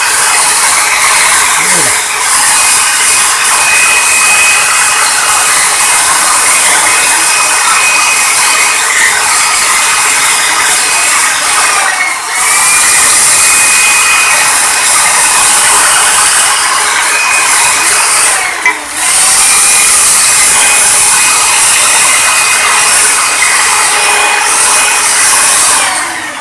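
Corded electric drill spinning an abrasive wheel against an aluminium motor housing, a steady high whine with a gritty hiss. The drill slows and spins back up twice, about halfway and about three-quarters through, and stops near the end.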